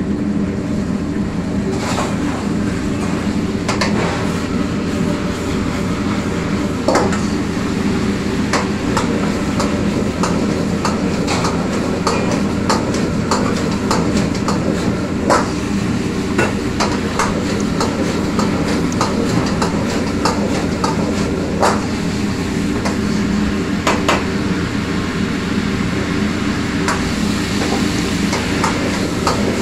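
Metal ladle repeatedly clanking and scraping against a steel wok as chilli chicken is stir-fried over a high flame, with many irregular sharp knocks over a steady loud roar from the stove.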